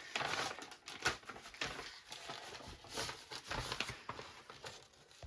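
A table being taken down and moved: a run of irregular knocks, clicks and rattles, cutting off suddenly near the end.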